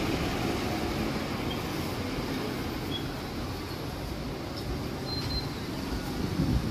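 Steady city-street background noise: a low traffic rumble from the road, with no distinct events standing out.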